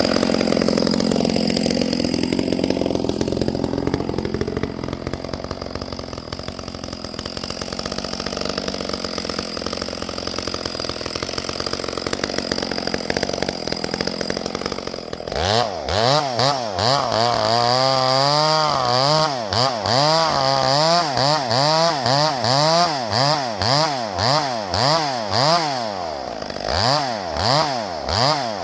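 Chainsaw running at high revs, likely cutting wood. From about halfway through, the engine revs up and down about once a second.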